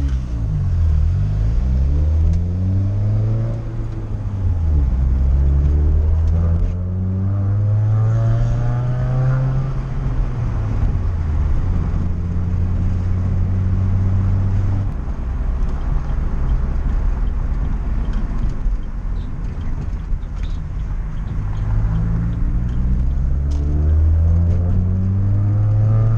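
Chevrolet Cobalt's four-cylinder engine heard from inside the cabin, pulling away and accelerating through the manual gears. The engine note climbs, drops at each gear change about four and ten seconds in, holds steady while cruising, then climbs again near the end.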